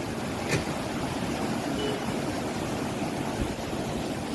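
Steady rushing of floodwater, an even noise with no break.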